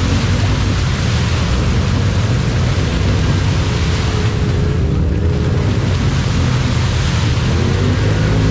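Polaris RZR side-by-side's engine running at high revs as its big lugged mud tires spin in a deep mud hole, with a steady hiss and spatter of thrown mud over the engine.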